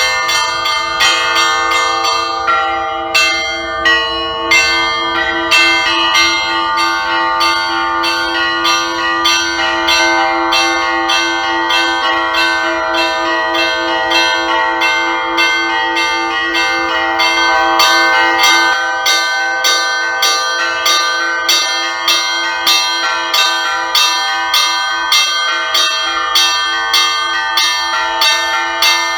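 Russian Orthodox church bells rung together for Easter: small bells struck rapidly, about three strokes a second, over the steady ringing of larger bells.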